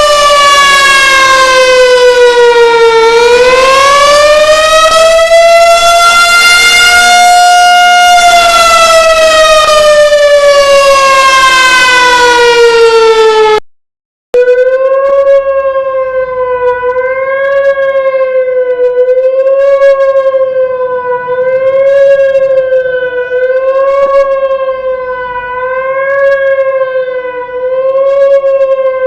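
Outdoor warning sirens being tested. The first sounds a slow wail, its pitch falling, rising and falling again over about thirteen seconds. After a brief cut a second siren holds a steady tone that wavers in pitch and loudness about once every second and a half.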